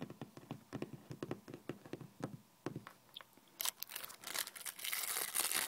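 Fingernails tapping on a tabletop in a quick, uneven run of light clicks. About three and a half seconds in they give way to the steady crackle of a candy wrapper being crumpled in the hand.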